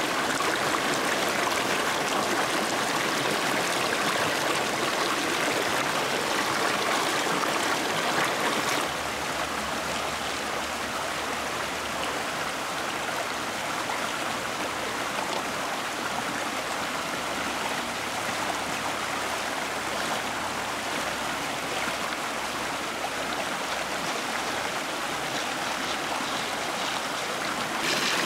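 Shallow stream rushing over rocks in small cascades: a steady wash of flowing water. It drops a little in level about nine seconds in and comes back up near the end.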